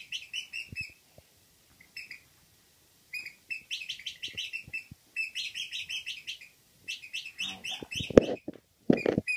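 Squeaky dog toy squeezed over and over in quick runs of short high squeaks, about three to four a second, to tease a pug. A couple of heavy thumps come near the end.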